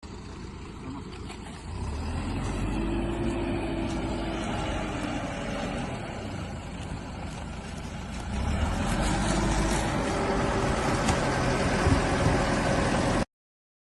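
Heavy vehicle engine running, working harder and louder about 2 s in and again about 8 s in, then cutting off suddenly.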